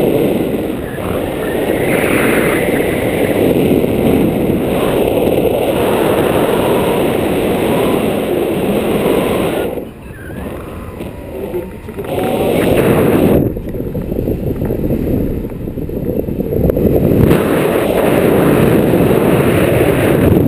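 Wind buffeting a pole-mounted GoPro action camera's microphone in paragliding flight: a loud, dense rumble that drops away briefly about ten seconds in, then builds again.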